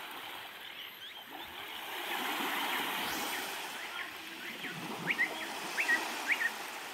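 Gentle waves washing on the shore, swelling slightly partway through. From about five seconds in, a bird chirps in quick pairs of short rising notes, three pairs in all, louder than the water.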